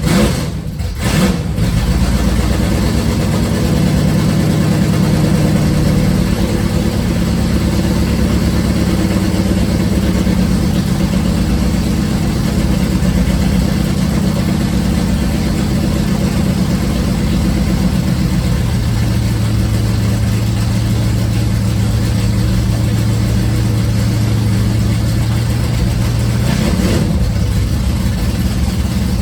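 1968 Plymouth Barracuda drag car's engine idling steadily through extra-long open header collector extensions, as an exhaust test of that collector set. The exhaust note settles lower about two-thirds of the way through.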